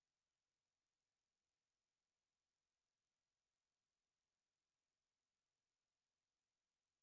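Very high-pitched electronic crow-repellent tone near the top of hearing, fluttering rapidly and hard to hear. It is a synthesized crow alarm call, sped up about three times and shifted up into its overtone range.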